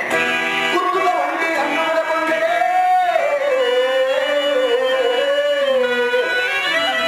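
A male voice sings a long, drawn-out melody that slowly wavers and bends in pitch, in the style of a Telugu stage-drama verse (padyam), over steady instrumental accompaniment.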